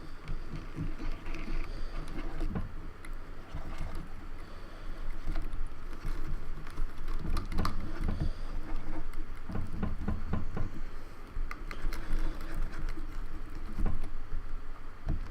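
Hands handling a plastic computer keyboard: scattered small clicks, taps and knocks over low rubbing and handling noise, fairly constant throughout.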